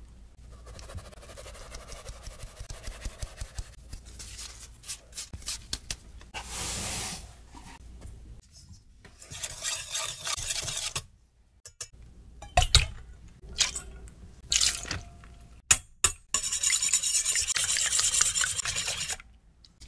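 Baking prep in stainless steel bowls: flour sifted through a fine metal mesh sieve, a wire whisk stirring the dry flour mixture, and a few sharp metal clinks. Near the end comes fast, steady whisking of eggs, the loudest part.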